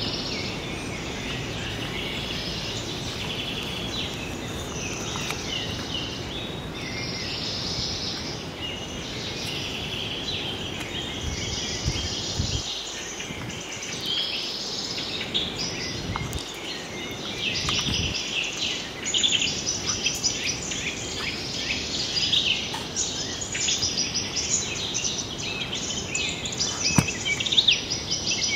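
Outdoor ambience: a steady low noise with many short, high chirping calls over it, such as birds and insects. The chirping grows denser and louder in the second half.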